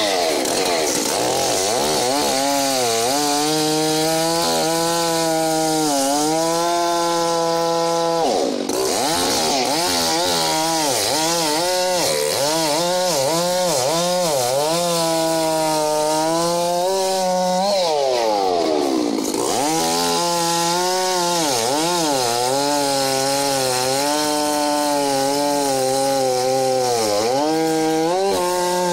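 Stihl MS 660 two-stroke chainsaw cutting wood at full throttle. Its engine note sags under load and picks back up again and again as the cut goes on. It drops off sharply and revs back up about eight and a half seconds in and again around nineteen seconds in.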